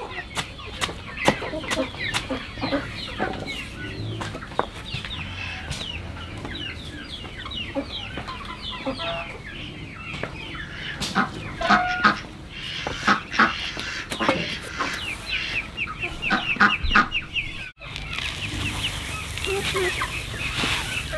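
Chickens clucking continuously, many short calls overlapping, with scattered sharp knocks that come thickest in the middle stretch.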